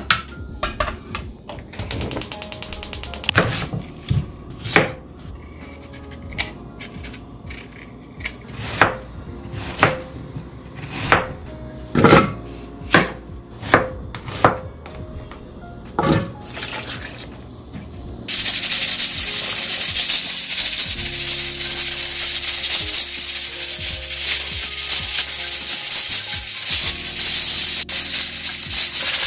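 Kitchen utensils and dishes knocking and clinking a dozen or so times, with a brief buzzing rattle early on. About two-thirds through, a loud steady hiss starts suddenly, like running water or food sizzling.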